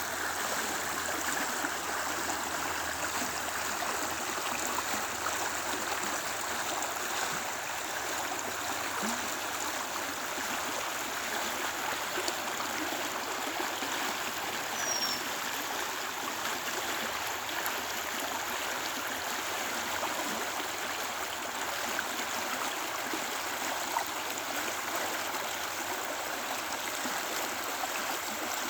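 A lively creek flowing, a steady, even rush and gurgle of moving water.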